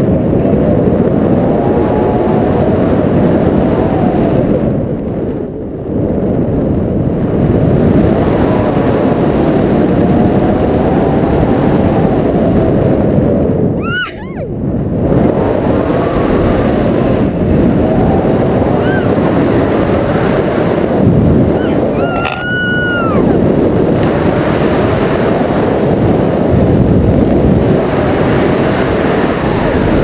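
Heavy wind rushing and buffeting over an action camera's microphone in paragliding flight, easing briefly twice. Two short high-pitched cries cut through, one about halfway through and another about two-thirds through.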